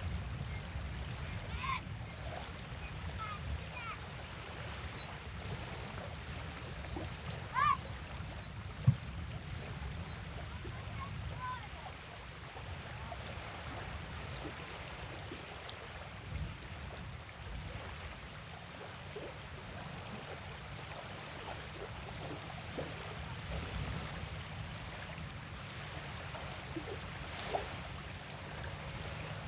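River water rippling steadily, with scattered short bird chirps and faint children's voices. A sharp knock sounds about nine seconds in.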